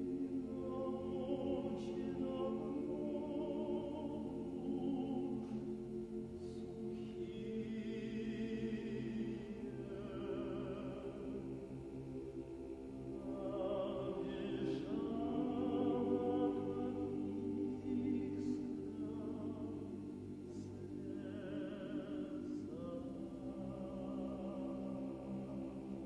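Background choral music: voices singing slow, sustained chords over steady held low notes.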